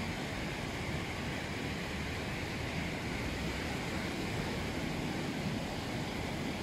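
Small sea waves washing in over the wet sand at the water's edge, a steady wash of surf with no single wave standing out.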